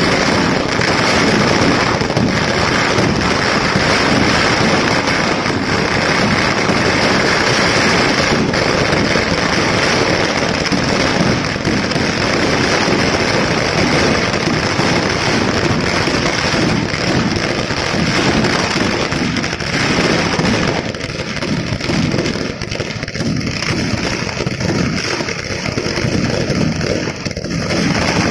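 Firecrackers going off on the ground in a dense, rapid, unbroken crackle of small bangs, thinning and turning more uneven about three quarters of the way through.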